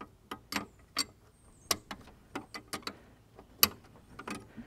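Irregular metallic clicks and taps of a wrench on a steel brake line flare nut at a brake master cylinder, as the nut is snugged up and backed off to seat the flare. There are about a dozen sharp clicks, the loudest about three and a half seconds in.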